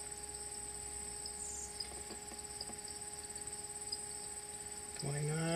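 Insects chirring steadily at a high pitch, over a faint steady hum.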